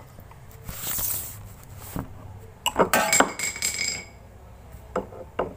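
Small metal or glass objects clinking and ringing, several quick strikes about two and a half seconds in that ring on for about a second before being cut off, after a short hiss about a second in.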